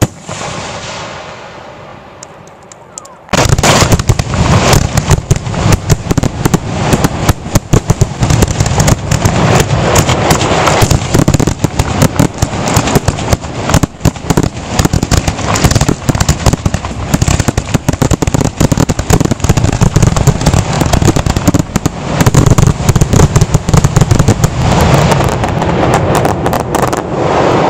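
Aerial firework shells bursting: one burst with a fading crackle, then about three seconds in a sudden, rapid, continuous barrage of loud reports, many a second, typical of a fireworks finale.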